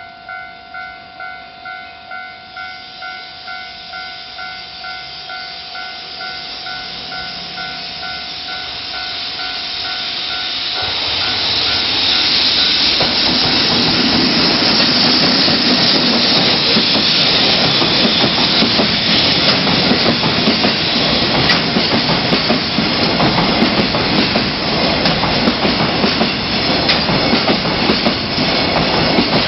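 Japanese level crossing warning bell ringing in even, rapid pulses of a bright electronic tone. About ten seconds in, a freight train reaches the crossing and its cars rumble and clatter past loudly over the rails, drowning out the bell.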